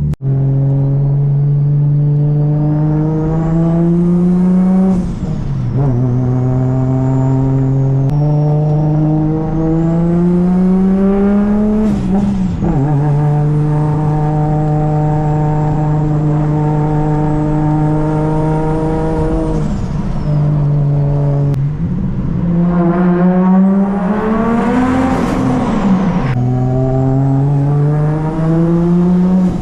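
Toyota Chaser JZX100's 1JZ inline-six pulling hard through the gears, its pitch climbing for several seconds and then dropping sharply at each upshift, about five times. A faint high whine rises and falls above the engine.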